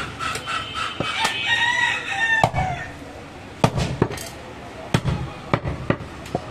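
Butcher's cleaver chopping through mutton ribs on a wooden chopping block: a dozen or so sharp chops at uneven intervals. From about a second in, a drawn-out high call sounds for about a second and a half behind the chops.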